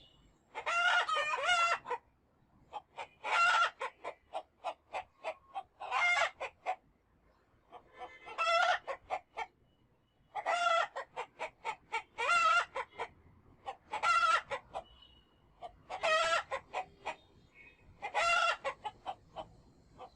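Domestic chickens clucking and calling: runs of short clucks, each leading into a long, loud drawn-out call, repeating about every two seconds.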